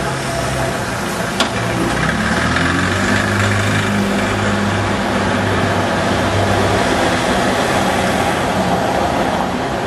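Street noise with a motor vehicle engine running steadily for several seconds, fading out near the end, and one sharp click about a second and a half in.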